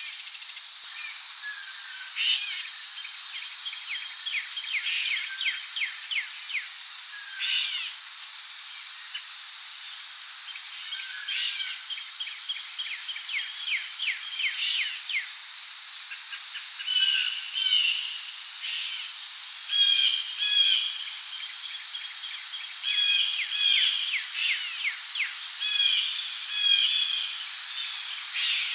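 Rainforest ambience: crickets hold a steady high-pitched drone while birds call over it, with sharp high calls every couple of seconds and fast trills. From about halfway through, short chirps come in quick pairs.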